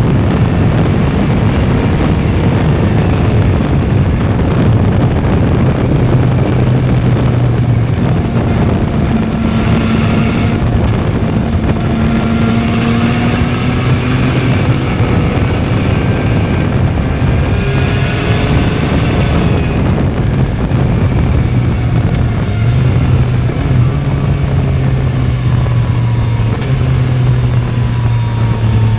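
Yamaha XSR 900's 890 cc three-cylinder engine through an Akrapovič full exhaust system, heard on board while riding. The engine note climbs and drops several times as the bike accelerates and shifts through the gears.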